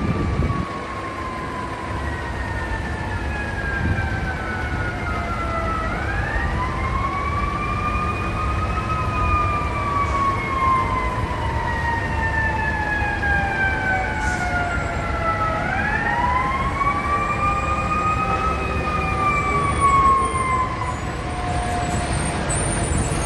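FDNY Squad 1 rescue truck's siren wailing in two slow cycles, each rising quickly in pitch and then falling slowly over several seconds, over low street and engine noise.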